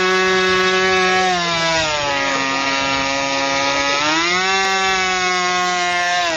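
Small piston engine of a radio-controlled Bobcat model jet running at high revs during a ground run-up before flight. It is throttled back from about a second and a half in, opened up again at about four seconds, and starts to throttle back at the very end.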